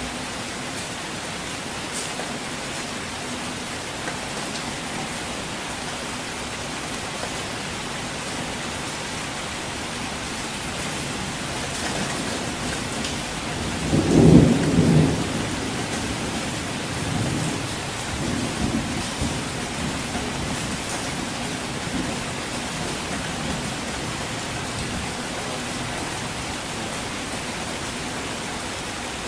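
Steady rainfall, with a roll of distant thunder that swells to a loud low rumble about halfway through and grumbles on more faintly for several seconds before fading back into the rain.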